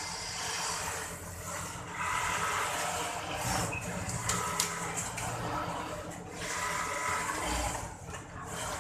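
Steady din of a garment-factory sewing floor: many industrial sewing machines running together, with workers' voices faintly mixed in.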